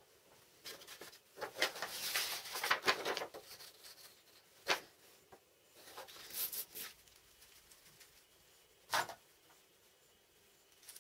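Printed paper sheets rustling as they are handled on a bench, then a few sharp separate clicks of small metal hardware (a ball bearing and a bolt) being picked up and handled.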